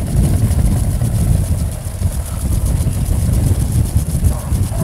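Wind buffeting the microphone, an uneven low rumble, over a steady high-pitched hiss.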